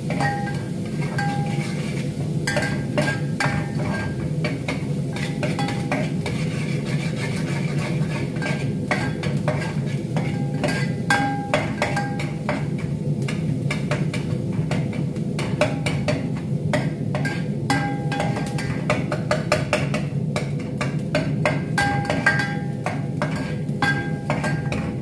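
A metal spoon stirring a meat and tomato sauce in a steel pot, clinking and scraping against the pot's sides and bottom in quick, irregular strokes, over a steady low hum.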